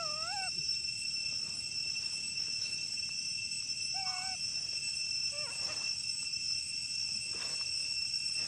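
A monkey giving short, high-pitched, bending calls: one at the start, another about four seconds in and fainter ones after. The calls sound over a steady high insect drone.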